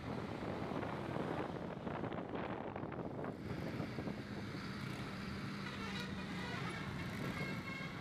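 Road traffic noise around a moving tour bus: a steady rumble of engines and tyres, with a faint steady hum joining about halfway through.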